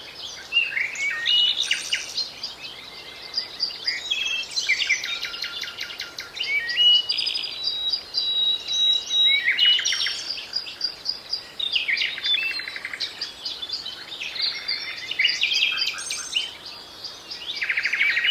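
Songbirds singing: quick trills, rattles and short whistled notes in varied high-pitched phrases, with brief pauses between them.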